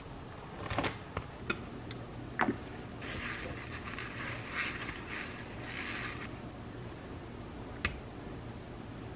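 A few light knocks and rustles first, then a paper towel wiped in several swishing strokes around the inside of a white frying pan to grease it with a thin film of oil, and one light tap near the end.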